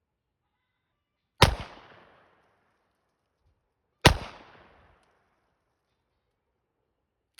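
Two shots from a Taurus 856 .38 Special revolver, about two and a half seconds apart, each trailing off in a short echo.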